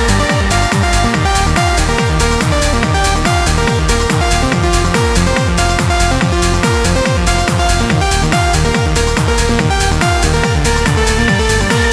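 Electronic dance music with a steady kick-drum beat, hi-hats and synth chords, laid over the video as a soundtrack.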